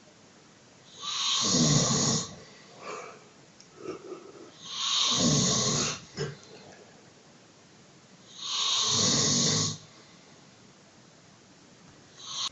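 A man snoring heavily in his sleep: three long, loud snores about three and a half seconds apart, with fainter short sounds between them.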